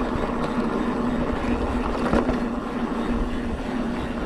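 Mountain bike rolling down a dry dirt trail: steady tyre and wind noise with a low steady hum running through it, and a single knock from the bike about two seconds in.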